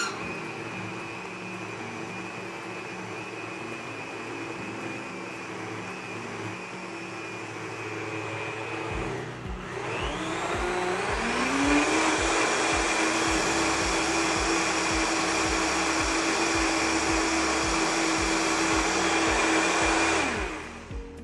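Countertop blender puréeing a jug of hot carrot soup. The motor runs steadily, dips briefly about nine seconds in, then climbs to a higher speed with a rising whine and runs on until it stops near the end.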